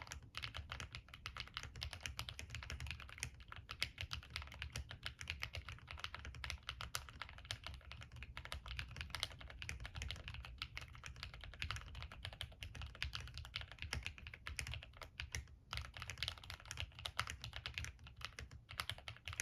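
Continuous fast typing on a plateless MK870 TKL mechanical keyboard with Gateron Yellow frankenswitches (Milky top housing, black bottom housing, long-pole stem) and Cherry profile keycaps. A steady stream of key clacks, pausing briefly a few times.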